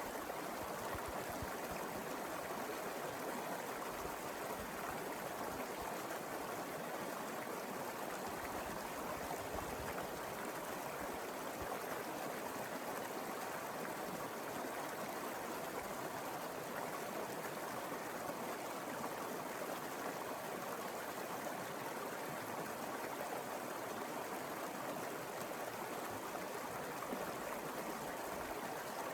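Mountain river flowing over rocks: a steady rush of water without change.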